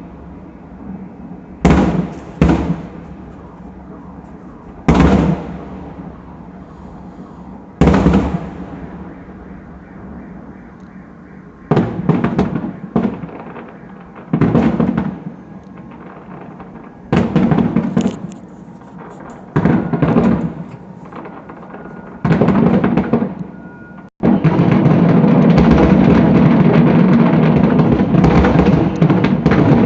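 Fireworks salute: a series of loud booming bursts, each with a rumbling tail, a few seconds apart, over music playing in the background. About 24 s in the sound cuts out for an instant, then gives way to continuous loud music with drums.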